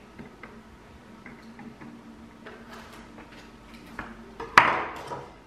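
Thin pry tool working along the seam of a Segway Ninebot ES2 battery's plastic case: small clicks and scrapes, then a louder sharp snap of the plastic about four and a half seconds in.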